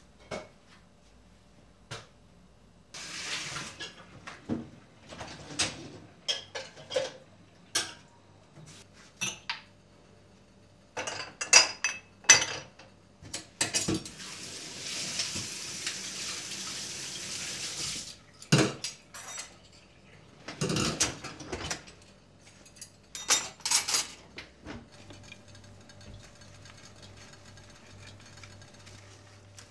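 Dishes, pots and cutlery clinking and clattering in irregular knocks while kitchen work goes on, with a tap running for a few seconds near the middle.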